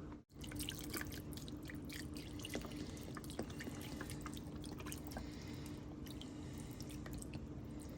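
Faint dripping and small wet plinks as broth and pickled vegetables are poured and spooned into a crock pot, many irregular little drops throughout, over a steady low hum.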